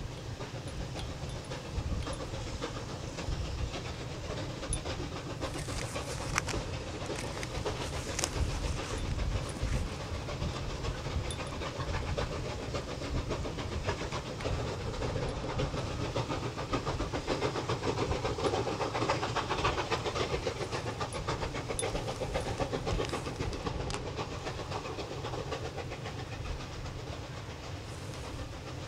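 Two China Railways QJ 2-10-2 steam locomotives working hard in double-heading up a steep grade. Their exhaust beats overlap into a rapid, continuous chuffing, loudest a little past the middle.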